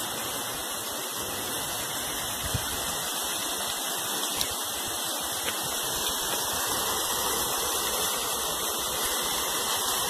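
Running water rushing steadily, an even noise with no breaks.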